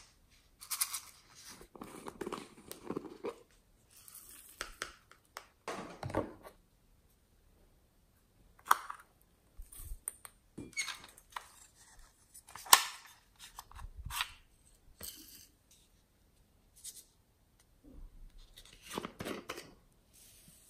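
Handling of slime toppings over a glass tray of slime: irregular rustles, crinkles and sharp clicks of small pieces and plastic packets, with foam beads poured from a plastic bag near the end.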